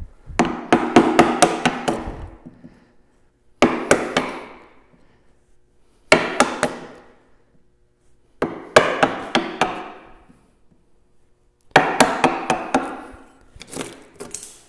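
Wooden mallet striking a chisel in six runs of rapid blows, the chisel chopping waste wood off the end of a tabletop to form a breadboard-end tongue, with chips splitting away.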